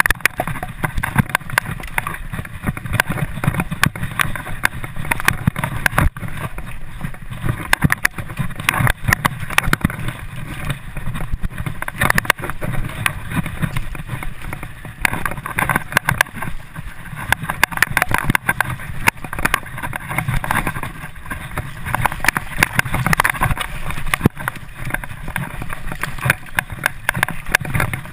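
Mountain bike riding fast down a bumpy dirt trail: a steady rush of tyre and wind noise with constant rattling knocks and jolts from the bike and camera over the rough ground.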